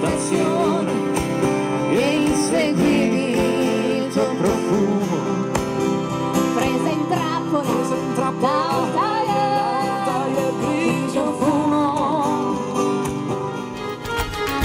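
Acoustic music: acoustic guitars strumming steadily under a singing voice, with a wavering melody line carried on top.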